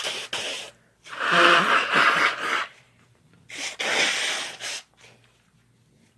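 A person sneezing hard several times in a row, brought on by chhinkni sneezing snuff: a sneeze tailing off at the start, the loudest about a second in with a voiced cry in it, and another about three and a half seconds in.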